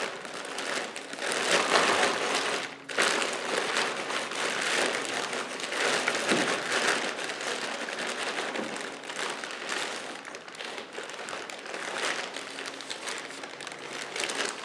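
Plastic potting-soil bag crinkling and rustling as it is handled and tipped, with loose soil pouring out of it into a plastic planter bowl. There is a brief break in the rustle about three seconds in.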